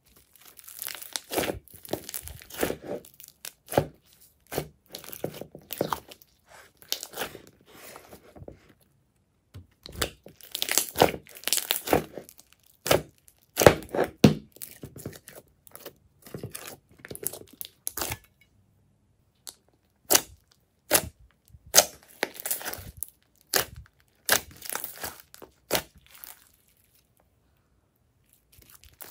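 Thick glossy slime with foam beads being stretched, squeezed and pressed by hand, giving quick sticky clicks and crackles in irregular bursts, with a couple of short breaks.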